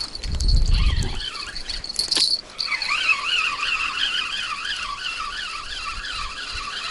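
Spinning reel on a feeder rod being cranked: a gear whine that rises and falls about three times a second, once per turn of the handle. It starts after a second of low handling rumble and a thin high whine.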